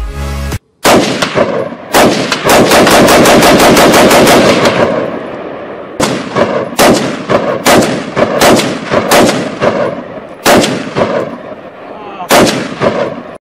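Gunfire from an AR-15-style rifle: a single shot, then a rapid burst of closely spaced shots lasting about three seconds, then a string of separate shots two or three a second with short pauses.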